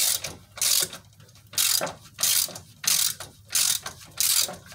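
Hand ratchet turning a 15 mm deep-well socket, running a motor mount bolt down into a nut welded inside the frame. It clicks in a steady run of strokes, about three every two seconds.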